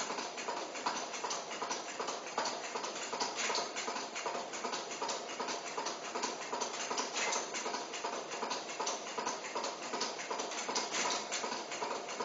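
Solari Dator 10 electromechanical flip clock being fast-advanced by electronic impulses: its minute flaps flip over one after another, a regular clacking of about two to three flips a second.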